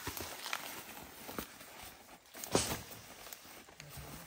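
Scattered rustling and light knocks of camping gear being handled, with one sharper knock about two and a half seconds in.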